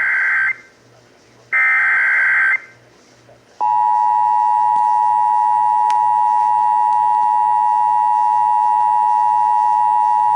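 Emergency Alert System SAME header: a one-second burst of screechy, warbling digital data tones, the last of three, ending about two and a half seconds in. A second later the EAS attention signal starts, a steady two-tone alarm (853 and 960 Hz) held without a break.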